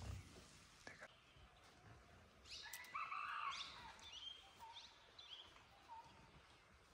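Wild birds calling in forest. A burst of chirping, sweeping calls comes about two and a half seconds in, followed by short, repeated notes about once a second. A soft low bump sounds right at the start.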